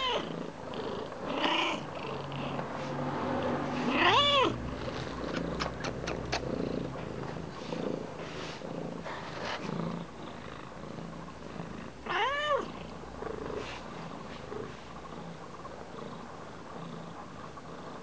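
Persian cat purring steadily while its head is rubbed. Three short meows, each rising then falling in pitch, break in: one at the start, one about 4 seconds in and one about 12 seconds in.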